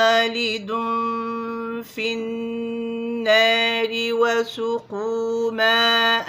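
A woman's voice reciting the Quran with tajweed, holding long, steady melodic notes, broken by short pauses about two and five seconds in.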